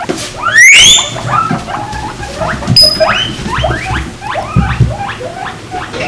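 Guinea pigs wheeking: one loud, rising wheek about half a second in, then a run of shorter squeaking wheeks repeated several times a second.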